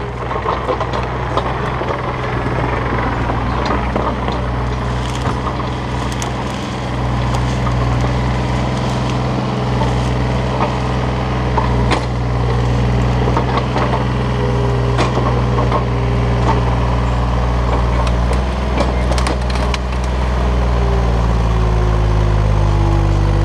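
Takeuchi TB235 mini excavator's diesel engine running hard, with a wavering whine in the second half and scattered cracks and knocks as the bucket rips through brush and grips a log.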